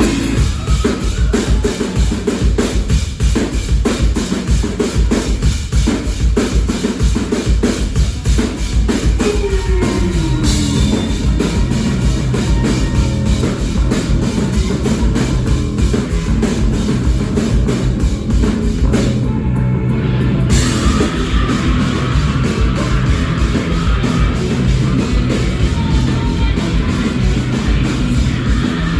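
Live rock band playing loud, driven by fast, busy drumming on a kit with kick and snare, coming in suddenly at the very start.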